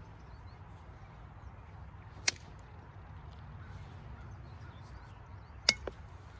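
Copper-tipped knapping tool working a piece of creek flint, sharp clicks as flakes come off the stone: one about two seconds in, then two close together near the end.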